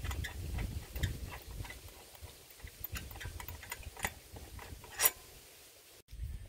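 Hand ratchet clicking in short, irregular runs as a bolt on a small engine's carburetor bracket is turned, with one sharper click about five seconds in. The clicking stops abruptly about six seconds in.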